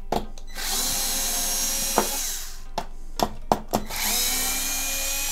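Electric screwdriver with a Torx bit backing screws out of a console's metal chassis. It gives two runs of a steady motor whine, with a few sharp metallic clicks between them.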